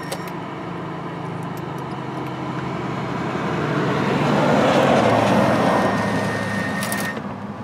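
Cordless drill driving a screw through a double layer of rubber into a wooden board, running for several seconds, getting louder toward the middle with a thin whine, then stopping about seven seconds in. A steady low hum runs underneath.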